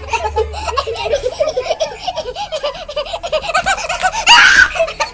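Two girls laughing hard together in fits of rapid, repeated bursts, with one loud, high shriek of laughter near the end.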